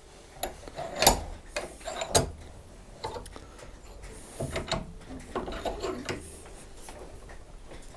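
Metal parts clicking and clanking against the jaws of a bench vise as a bolt is positioned and the vise handle is turned to clamp it, with sharp knocks about one and two seconds in and a cluster more around five seconds.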